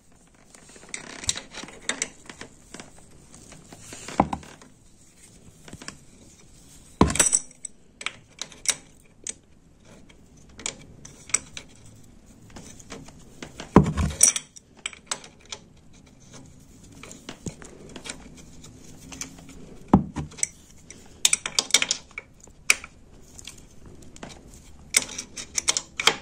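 Hand tools clinking and knocking on metal as a new drain bolt with a copper washer is fitted into a motorcycle's oil pan. Scattered sharp clicks, a few louder knocks spread through, and quick runs of clicks near the end.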